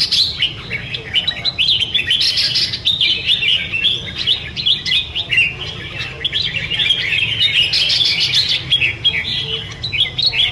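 Two caged red-whiskered bulbuls singing against each other in a dense, unbroken stream of quick, warbling chirped phrases.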